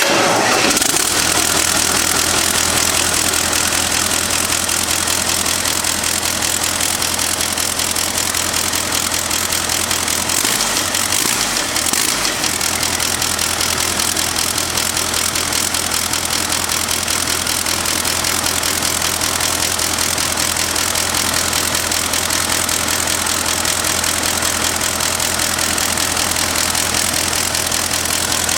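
Hino EF750 16.7-litre twin-turbo diesel engine running, a loud steady drone whose low hum falters briefly about ten seconds in. The seller lists it as making an abnormal noise and running unevenly.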